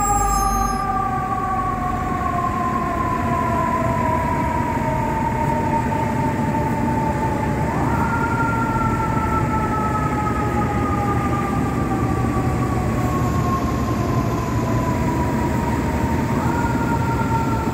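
Fire truck siren winding slowly down in pitch, then pushed quickly back up about 8 seconds in and again near the end, over the low rumble of city traffic.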